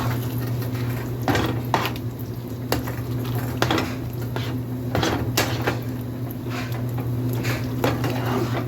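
A spoon stirring ground-beef and cheese-sauce dip in a pan, clinking and scraping against the pan at irregular moments, over a steady low hum.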